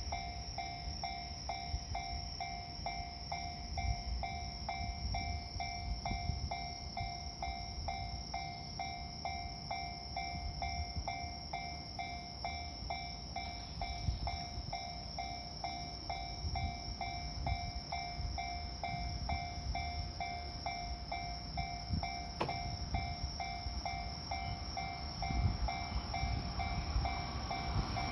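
Japanese railway level-crossing warning bell ringing in a steady, even repeat of about two electronic dings a second, over a low rumble. The rumble grows louder just at the end as a train approaches.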